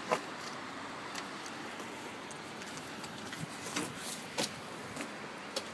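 Steady rushing of the River Exe in flood, the swollen brown river in full, fast flow, with a few sharp clicks scattered through it.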